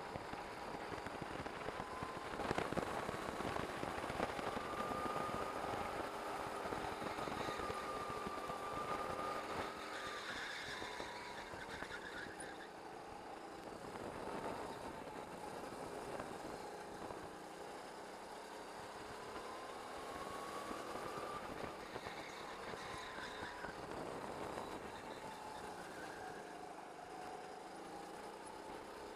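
Go-kart engine heard from the driver's seat while lapping a track, its pitch climbing as it accelerates and falling off for the corners several times, with a sharp drop about ten seconds in.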